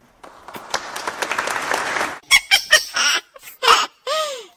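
Scattered clicks and knocks, then about four seconds in a short high-pitched call that rises and falls in pitch, like a honk.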